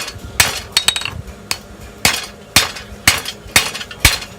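Blacksmith's hand hammer striking hot steel on an anvil in a steady rhythm of about two sharp, ringing blows a second, forging out a leaf.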